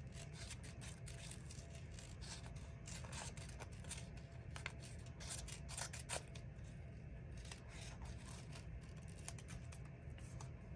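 Small paper pieces being handled on a desk: faint, scattered light clicks and rustling.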